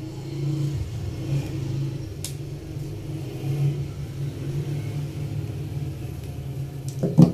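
A steady low mechanical hum, over which combination pliers give a faint click while stripping insulation off a wire; a single thump near the end.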